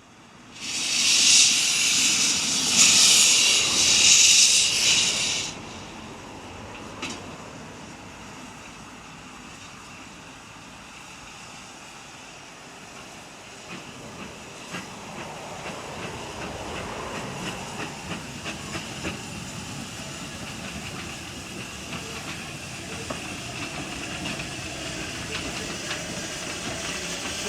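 Narrow-gauge steam locomotive letting off a loud burst of hissing steam for about five seconds, then a quieter steady rumble with light knocks that slowly grows louder.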